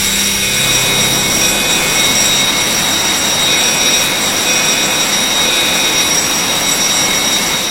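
A loud, steady rushing hiss with faint high whistling tones held over it, dying away at the very end.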